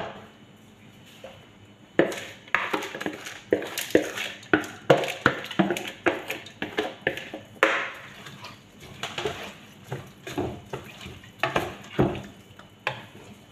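A spoon scraping food out of a plastic bowl into a cooking pot and knocking against the bowl and pot rim: an irregular run of sharp knocks and scrapes starting about two seconds in.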